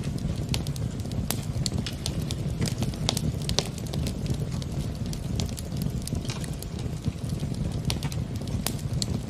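Log fire crackling in a fireplace: frequent irregular sharp pops and snaps over a steady low rumble.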